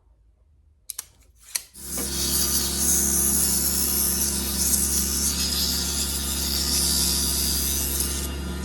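Two clicks about a second in, then a power tool starts and runs steadily: a low motor hum under a rough, rasping noise of wood being worked.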